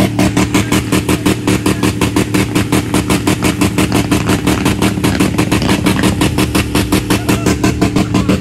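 Ford modular V8 engine in a pickup truck held on its rev limiter, the engine note pulsing evenly about seven times a second as the limiter cuts in and out.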